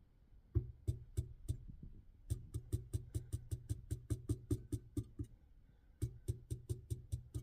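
Bass-heavy music with a steady beat of about four to five strokes a second, pausing briefly about two-thirds of the way in.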